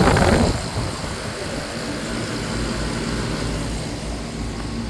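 Bryant 561CP 4-ton air conditioner condensing unit running: a steady low hum from the compressor under the whoosh of the condenser fan. A louder rush of air comes in the first half second, then the running sound holds even.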